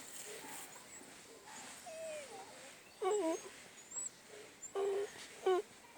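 Puppies whining in several short, pitched whimpers, faint at first, then louder about three seconds in and again twice near the end.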